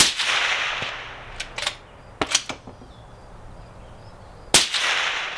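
Two suppressed .308 rifle shots through a SIG TiN Can 3D-printed titanium suppressor, about four and a half seconds apart, each a sharp report with a short echo trailing off. Between them come two quick sets of metallic clicks from the bolt being cycled.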